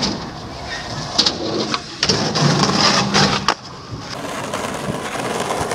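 Skateboard wheels rolling on concrete, with several sharp clacks of the board striking the ground, and a brief low hum a little past the middle.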